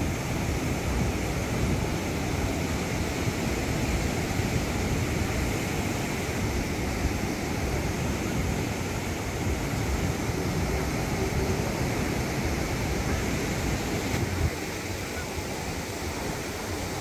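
Rough surf breaking and washing on a sandy beach, a steady, dense rush of noise that eases slightly near the end.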